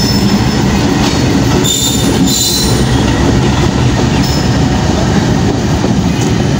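Pakistan Railways GEU-20 diesel-electric locomotive (a GE U20C) running light past at close range, its diesel engine rumbling loudly over the rolling of its wheels on the rails. A brief high wheel squeal comes about two seconds in.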